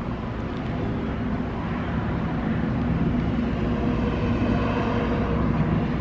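Road traffic: a vehicle's low rumble swelling steadily louder as it approaches.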